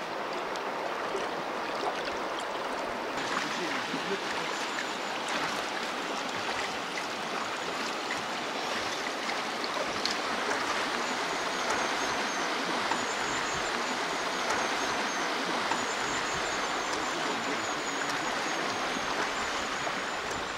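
Fast mountain river water rushing steadily over stones. The rush grows brighter about three seconds in.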